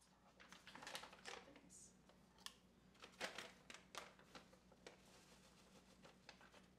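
Faint rustling and crinkling of a bag of almond flour being handled, with scattered light clicks, over a low steady hum.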